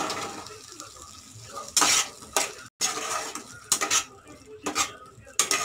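Metal spatula scraping and stirring green peas into thick masala in a kadai, in irregular strokes against the pan, after the peas are tipped in from a glass bowl at the start.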